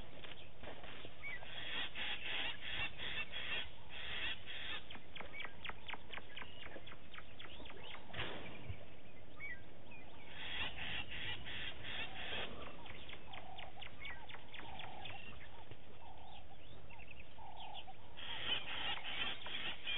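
Birds calling in repeated bouts of rapid rattling cackles, about five notes a second, with a few shorter lower calls in between, over a steady outdoor background hiss.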